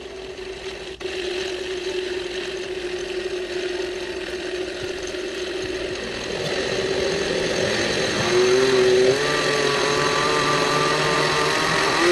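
Countertop blender motor running steadily, puréeing chopped potatoes with milk, eggs and olive oil. Its whine steps up a little in pitch about eight seconds in.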